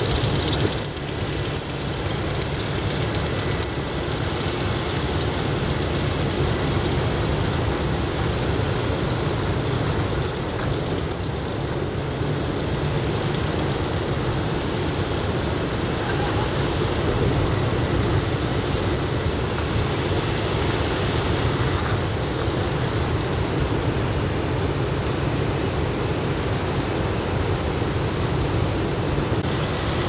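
Steady, even roar of typhoon-swell surf breaking along the beach, with wind on the microphone.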